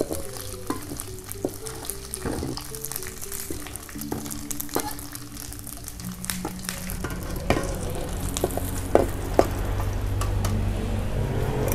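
Small dried anchovies sizzling as they fry in oil in an aluminium wok, with a metal spatula scraping and clicking against the pan as they are stirred. Background music plays underneath.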